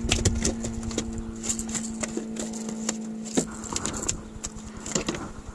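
Irregular clicks and taps as a freshly landed largemouth bass flops in a landing net on the boat deck and the hooked rattle-trap lure clatters while it is handled. A steady low hum stops about three and a half seconds in.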